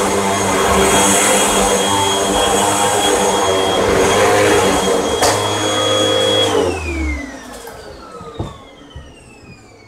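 Hoover WindTunnel Rewind Bagless upright vacuum cleaner running steadily with a high whine, then shut off about two-thirds of the way through, its motor whine falling in pitch as it spins down.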